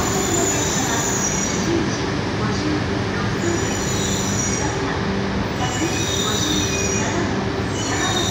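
Coupled Tohoku Shinkansen train, an E3-series Tsubasa leading an E2-series Yamabiko, rolling slowly into the platform as it brakes to a stop. A steady low hum and rumble runs under high squeals that come and go every second or two.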